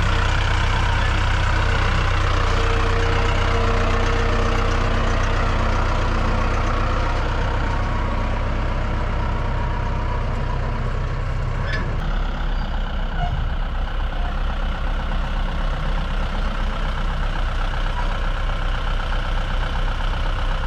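Heavy engine running steadily; about twelve seconds in it changes abruptly to a lower, rapidly pulsing run.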